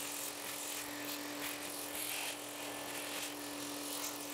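Vacuum cleaner running steadily, a constant hum under an even rushing hiss, its hose nozzle sucking dust out of a bathroom exhaust fan housing.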